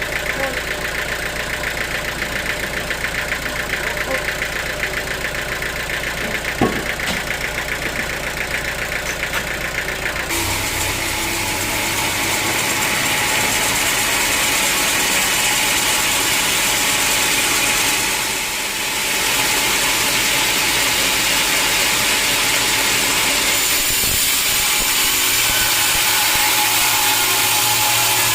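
Sawmill machinery running: an engine with a fast, even pulse for about the first ten seconds, with one sharp click in between, then an abrupt change to a steadier, hissier machine noise.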